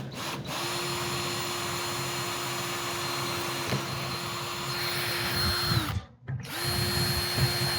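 Electric drill running a small bit through thin aluminium track, boring a pilot hole for tapping threads. The motor whines steadily for about five seconds, stops briefly, then starts again.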